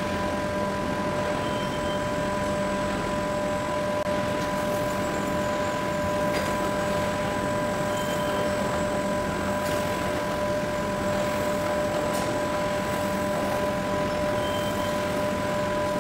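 Automatic ring-type stretch wrapping machine running as its film carriage circles the pallet: a steady mechanical hum with several constant tones and a few faint ticks.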